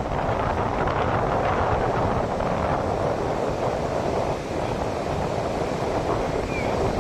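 Ocean surf washing onto a beach as a steady rushing noise, with wind buffeting the microphone and adding a low rumble.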